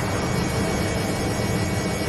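Washing machine running with a steady mechanical hum and whir.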